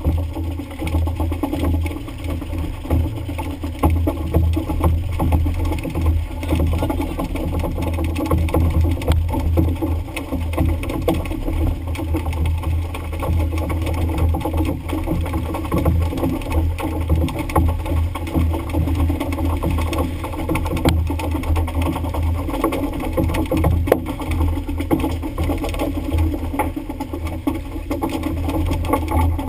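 Fishing boat's engine running steadily, a low drone that flutters unevenly.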